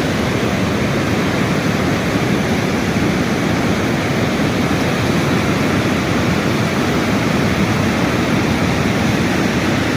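Rushing water: a steady, unbroken, loud noise, fullest in the low range.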